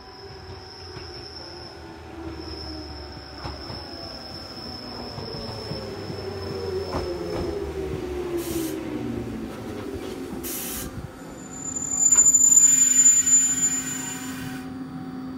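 Echizen Railway MC6101-series electric railcar braking into a station. Its motor tone falls steadily in pitch, and two short hisses follow. As it stops, a loud high brake squeal sounds for about two seconds, then a steady low hum remains.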